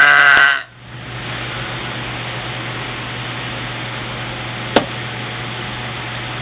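The end of a long, loud burp from a woman who has been drinking Coca-Cola; it cuts off about half a second in. After it there is only a steady hiss and low hum, with one brief sound a little before the end.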